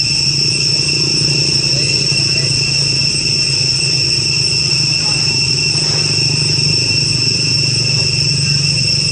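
Steady, high-pitched insect drone from a chorus of insects such as cicadas or crickets. Under it runs a low, even hum. Both sound without a break throughout.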